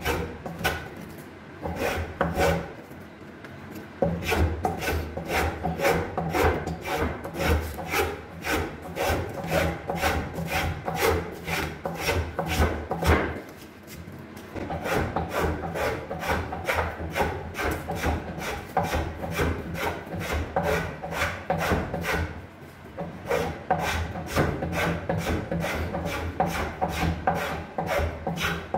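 Hand shaping tool stroked quickly over the wood of a cricket bat handle, about two or three rasping strokes a second, with short pauses about 3, 14 and 22 seconds in.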